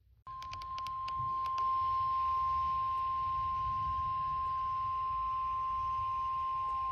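NOAA Weather Radio warning alarm tone (1050 Hz) coming through a weather radio receiver's speaker: one steady high-pitched tone that starts suddenly, with a few clicks in its first second. The tone signals that a warning message follows.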